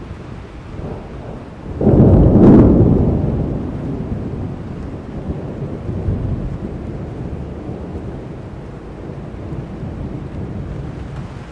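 A thunderstorm: steady rain with a thunderclap that breaks sharply about two seconds in, with a crack at its peak, then rumbles away over several seconds.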